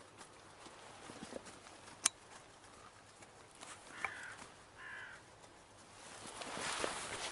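Two harsh caws from a hooded crow, about four and five seconds in. A sharp click comes about two seconds in, and a rustling builds near the end.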